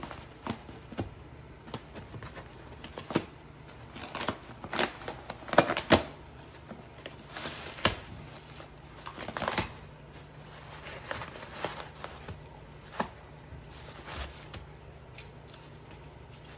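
A beagle tearing into a gift box and its tissue wrapping: paper crinkling, rustling and ripping in uneven crackles, with a few sharper tears in the middle.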